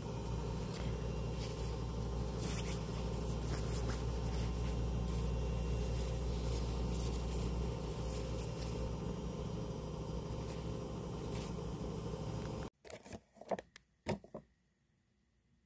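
Thin foldable fabric shopping bag being unfolded and handled: rustling and crinkling with many small crackles over a steady low hum. It cuts off near the end, followed by a couple of light knocks.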